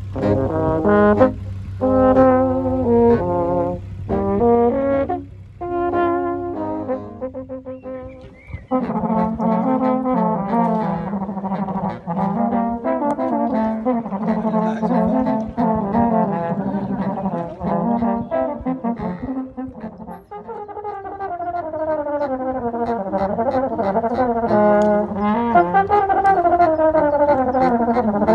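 Small brass band of saxophone and two tenor horns playing a march-style tune: short detached notes over a steady low hum for the first eight seconds or so, then a flowing melody with the horns moving in harmony.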